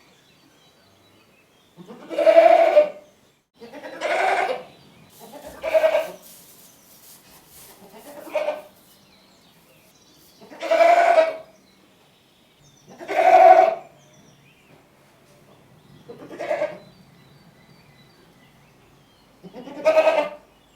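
Goats bleating: about eight separate calls of half a second to a second each, spaced a couple of seconds apart.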